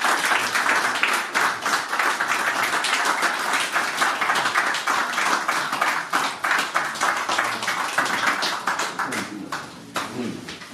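A small crowd applauding with dense hand clapping that thins out and dies away near the end.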